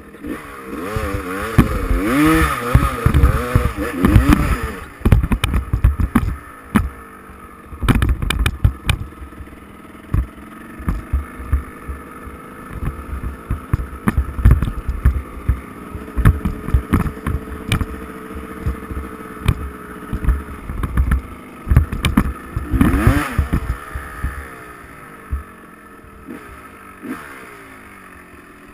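Dirt bike engine heard on board, revving up and down as the bike is ridden over rough ground, with frequent knocks and rattles from the bike jolting over bumps. It runs steadier through the middle, then eases off and gets quieter near the end.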